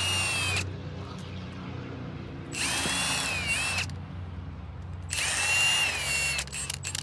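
Handheld power drill/driver whining in three short runs of about a second each, its pitch dipping under load as it backs out fasteners during an engine teardown.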